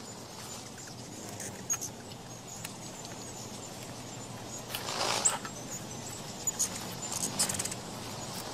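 Ruby-throated hummingbirds at a nectar feeder: scattered short, high squeaky chip calls and ticks, with a brief louder flurry about five seconds in.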